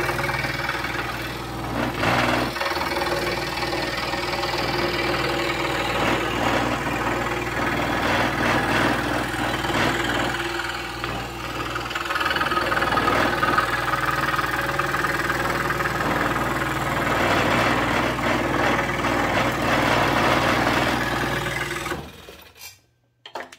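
Pegas 21-inch scroll saw running steadily, its blade cutting through a 3/4-inch wooden board. The sound cuts off suddenly near the end.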